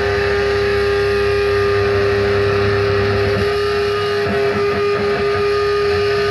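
Electric guitar playing live through a large outdoor PA, one long note held and ringing steadily.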